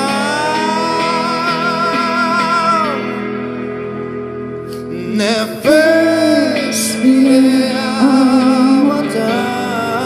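Live duet of a woman's and a man's voice singing long held notes with vibrato over guitar. One held note fades out about three seconds in, and the singing comes back about five and a half seconds in.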